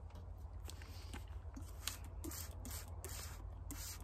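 Trigger spray bottle of 70% isopropyl alcohol squirted repeatedly into a mortar: a quick series of short, faint hisses, about two or three a second, starting about halfway in after some light handling ticks.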